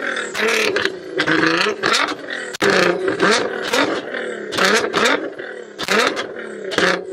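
2020 Nissan GT-R's twin-turbo 3.8-litre V6 revved in quick blips while standing, the exhaust note rising and falling about once or twice a second with no break.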